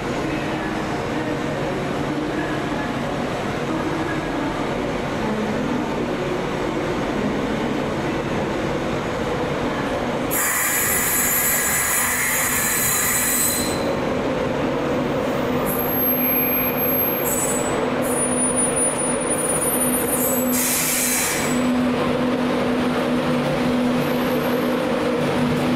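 A train moving through a station with a steady hum. Its wheels squeal loudly for about three seconds starting some ten seconds in, give thinner high squeals over the next few seconds, and squeal once more about twenty-one seconds in.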